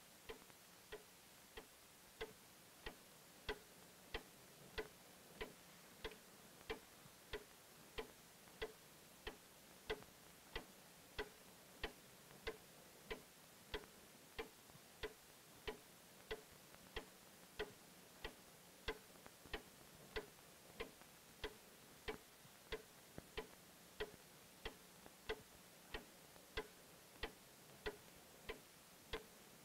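Clock ticking faintly and steadily, about three ticks every two seconds.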